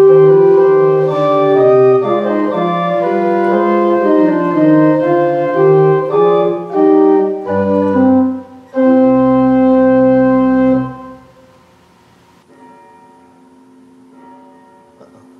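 Church organ playing sustained chords with moving inner voices, ending on a held full chord with deep pedal bass. The chord is released about eleven seconds in and dies away, after which only faint, soft tones remain.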